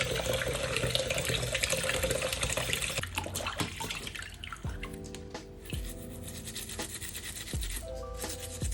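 A tap runs while meat is washed and scrubbed by hand. The water stops about three seconds in, leaving rubbing, a few dull knocks and background music.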